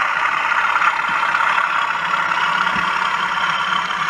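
OO gauge model freight train running past, its wagons rolling steadily over the track, with the steady engine drone of a DCC sound-fitted diesel locomotive.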